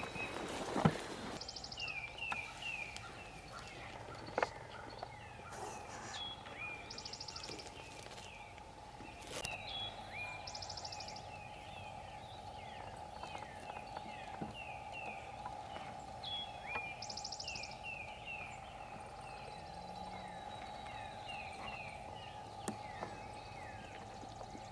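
Songbirds singing in the woods: quick series of down-slurred whistled notes, broken now and then by a fast high trill, over a faint steady hum. A single sharp knock sounds about a second in.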